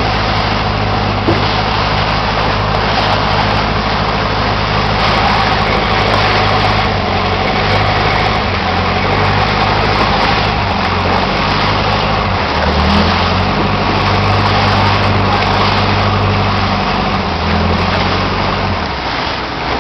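Tourist boat's engine running loudly and steadily under a dense wash of noise. Its pitch shifts about twelve seconds in and again near the end as the engine speed changes.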